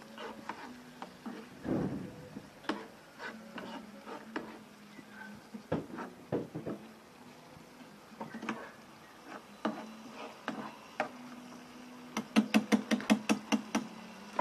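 A utensil clinking and knocking against a frying pan while stirring a panful of river shrimp: scattered irregular clicks. Near the end comes a quick, even run of about a dozen sharp taps, roughly seven a second.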